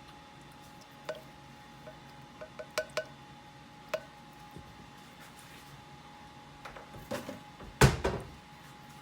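Light clinks against a kitchen mixing bowl, several short strikes that each ring briefly, as the coconut milk is added. Near the end comes a louder knock.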